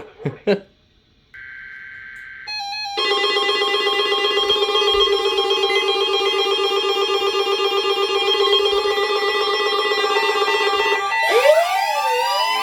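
A brief burst of digital data tones from the NOAA weather radio test, then several weather alert radios sounding their alarms together: a loud, steady mix of electronic tones and repeating beeps. Near the end, rising and falling siren-like sweeps join in.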